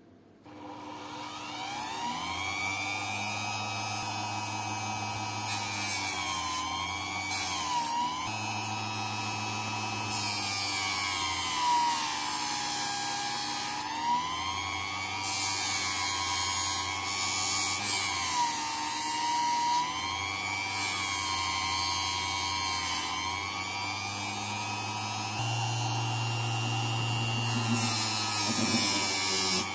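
A small high-speed electric motor whining, its pitch sagging and recovering over and over as if loaded and released, with bursts of hiss now and then.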